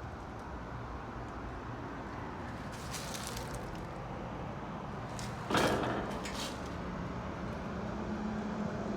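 Outdoor heat pump units running: a steady fan rush with a low compressor hum that becomes clearer in the second half. A sudden loud thump about five and a half seconds in.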